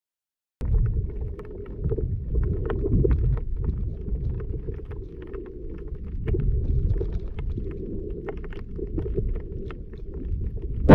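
Underwater sound picked up by a submerged camera: a muffled low rumble of water moving past as the diver swims, with many scattered sharp clicks and crackles, starting about half a second in. A louder knock comes right at the end.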